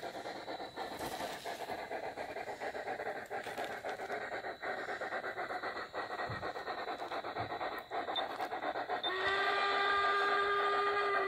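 G-scale model steam locomotive running with a rapid, continuous chuffing. About nine seconds in, a steady whistle blast starts and holds.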